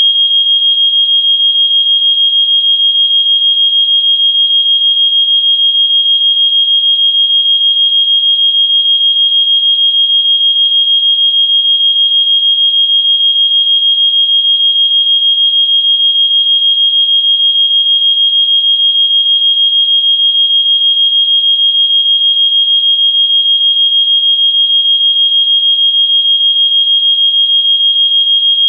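Fire alarm sounding one continuous, unbroken high-pitched tone.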